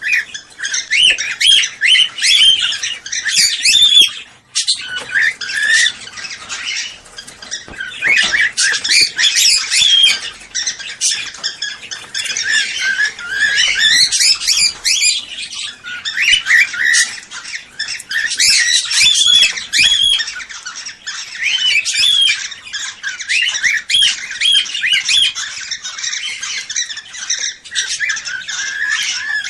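Cockatiels calling: a dense, unbroken run of rapid chirps and squawks that rise and fall in pitch, several calls overlapping, with a brief lull about four seconds in.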